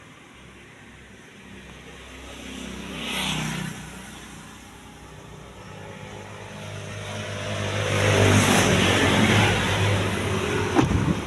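Road vehicles passing by: a short rise and fall of noise about three seconds in, then a louder, longer pass from about seven to ten seconds in. A few sharp knocks come near the end.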